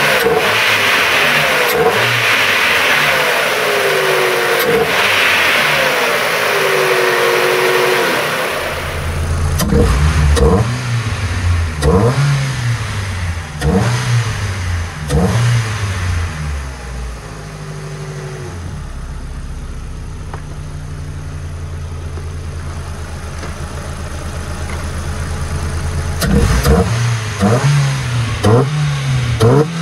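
Ford car engine, fitted with an open cone air filter, running: a loud hiss over it for the first eight seconds or so, then the throttle is blipped several times with the revs rising and falling, it settles to a steady idle, and it is blipped again near the end.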